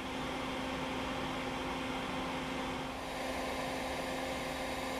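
Bee vacuum, a hose-fed bucket vacuum, running with a constant hum as its hose sucks honeybees out of a hollow pine tree cavity.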